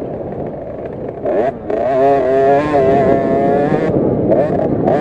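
KTM 50 SX two-stroke minibike engine heard close up from the bike, revving hard. The revs dip briefly about a second and a half in, then climb and hold high before wavering again near the end.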